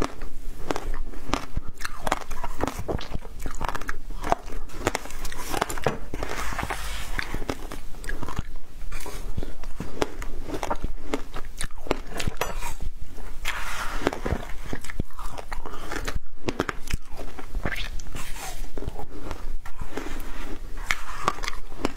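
Close-up biting and crunching of frozen passion fruit ice, a dense, continuous run of sharp cracks and crackles as the ice is chewed.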